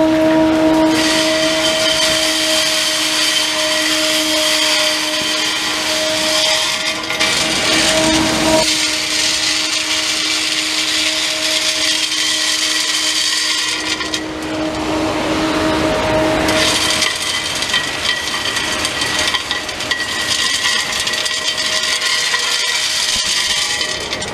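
Industrial vacuum running, a steady hum under a loud hiss as its large hose sucks up rubber granules and bullet fragments from the berm; the hum shifts abruptly twice.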